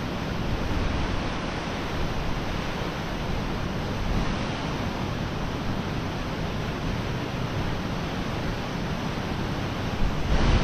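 Steady rush of stream water flowing through a small concrete weir, mixed with a low rumble of wind on the microphone; it grows louder near the end.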